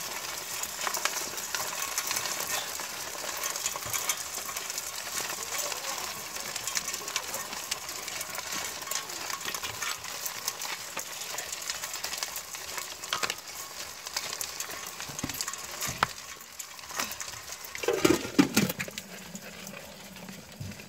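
Live crabs crackling and scrabbling in a stainless steel pot under salt and vinegar: a continuous fizzing crackle full of small clicks as salt is sprinkled over them. Near the end a few louder knocks as a glass lid is set on the pot.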